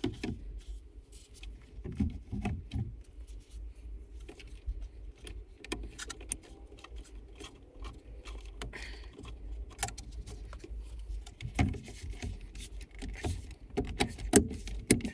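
Scattered clicks, taps and rustling of hands working plastic parts as the BMW F80 M3's steering-wheel airbag is plugged back in and pressed back into the wheel hub, with a few louder knocks near the end.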